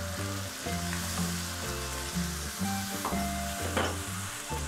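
Chicken strips frying in hot oil in a pan, sizzling steadily as a wooden spoon stirs them, with low background music underneath.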